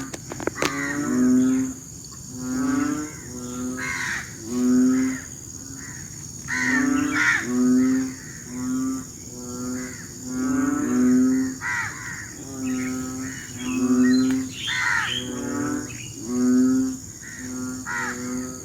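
Chorus of frogs croaking in the rainy season: their mating calls. Many overlapping short, low croaks repeat about once a second.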